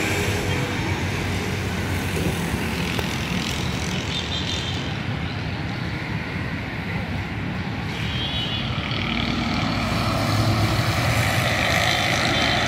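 Steady traffic on a busy multi-lane road, with motorcycles, auto-rickshaws and trucks passing. It gets a little louder about ten seconds in.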